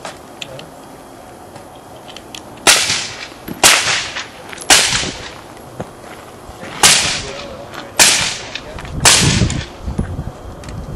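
Six suppressed pistol shots through an AAC Cyclone silencer, fired in an uneven string about one to two seconds apart. Each is a sharp crack with a short fading tail.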